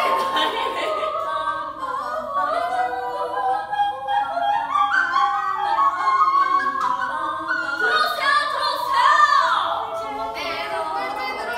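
Singing in an operatic style with held notes that step from pitch to pitch and a downward slide about nine seconds in.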